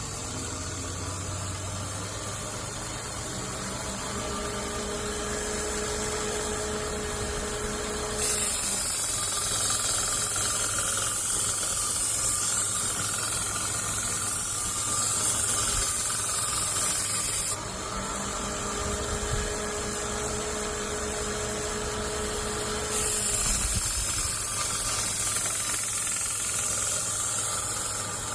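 Bucktool 2x42 belt grinder running at full speed while a machete blade is pressed onto the sanding belt twice, each time bringing a loud grinding hiss, the first about nine seconds long and the second about five. The motor bogs down under the load, which the owner says happens with even light pressure.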